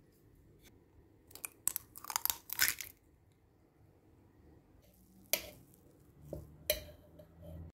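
Food being handled in a steel bowl: a burst of crackling, crunchy rustles, then two sharp metallic knocks with a short ring, about a second and a half apart.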